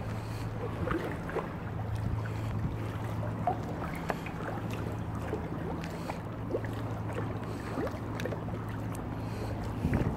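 Kayak paddle strokes in canal water: irregular drips and small splashes from the blades, over a steady low hum.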